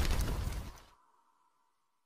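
Tail of a boom sound effect for a logo reveal, dying away with scattered crackles and then cutting off suddenly about a second in.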